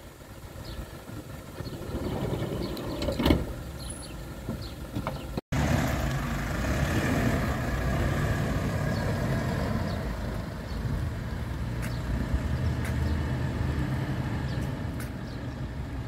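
Motor vehicle engines running as a gendarmerie pickup and van move off, a steady low sound after a cut about five seconds in. Before the cut, wind noise and a sharp knock about three seconds in.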